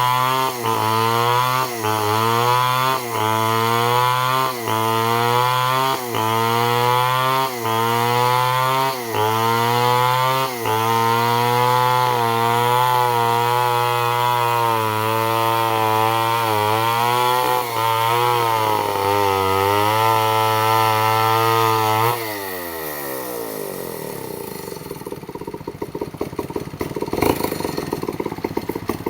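Stihl MS 250 chainsaw running at high speed while ripping a log into boards. For the first ten seconds or so its engine speed dips briefly about every second and a half, then it holds steady. About 22 s in the pitch falls away as the throttle is released, leaving a quieter, irregular clattering.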